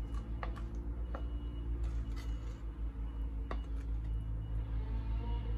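Wooden spatula scraping and knocking against a mixing bowl as thick cake batter is emptied into a mould: a few light knocks and scrapes over a steady low hum.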